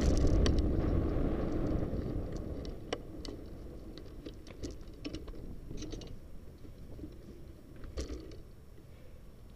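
Wind and tyre rumble from a moving bicycle fading away over the first couple of seconds as it slows to a stop, then scattered light clicks and rattles as the bicycle is handled and parked.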